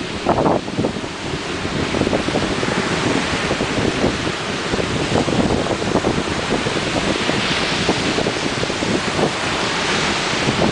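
Ocean surf breaking and washing ashore in a steady roar, swelling louder twice in the second half, with wind buffeting the microphone throughout.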